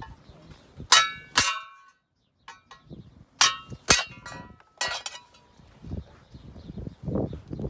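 Claw hammer striking a steel punch through a thin stainless steel sheet laid on a wooden plank to punch screw holes: about five sharp metallic clangs with a short ring, in pairs, with a few lighter taps between. Near the end, scuffing and rustling as the sheet is picked up.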